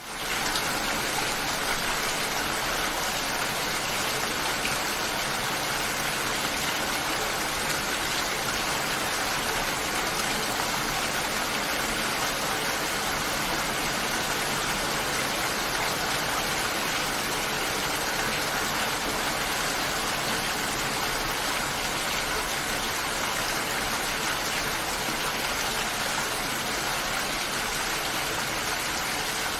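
Steady rain, an even hiss of falling drops that fades in at the very start and then holds level.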